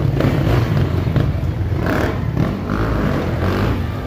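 Dirt bike engines running at low speed, revving unevenly with a few short louder bursts.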